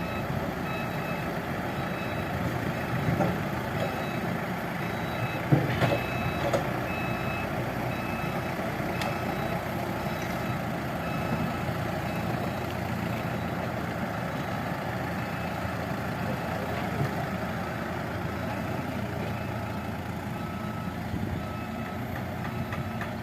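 Excavator engine running steadily while its warning alarm beeps at regular intervals, with a few loud knocks about five to six seconds in.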